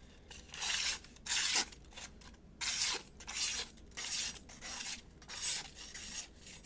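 The edge of a freshly sharpened Shun Classic chef knife slicing through a sheet of paper in a series of about eight short hissing strokes, feathering cuts that test the sharpness of the edge.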